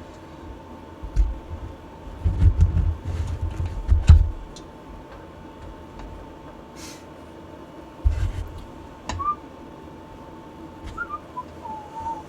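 Clunks and knocks of handling at a workbench, loudest a couple of seconds in and again about eight seconds in, then a person whistling a few short gliding notes near the end, over a faint steady hum.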